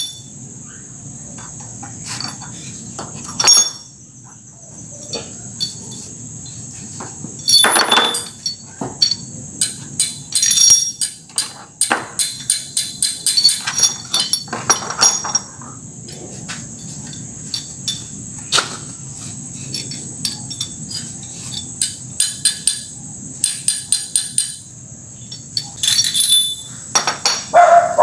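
Metal engine parts clinking and tapping as they are handled during engine reassembly, in irregular clusters with a quick run of taps about halfway through. A steady high insect trill runs underneath.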